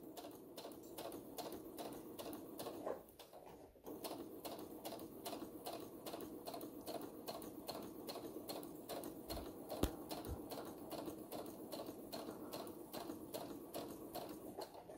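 Domestic sewing machine stitching slowly and steadily, an even run of stitch clicks at about four or five a second, as it understitches the lining of a fabric mask. It stops briefly about three seconds in and starts again, with a light knock near the ten-second mark.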